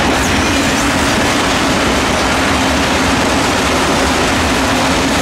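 Freight train of bogie tank wagons rolling past at speed, its last wagons going by: a loud, steady rumble and rattle of wheels on the rails, with a low steady hum underneath.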